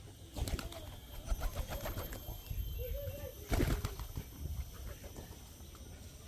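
Flock of domestic pigeons feeding on the ground: a run of quick clicks and flutters from pecking and wing movement, a short coo about three seconds in, and a louder flutter just after it.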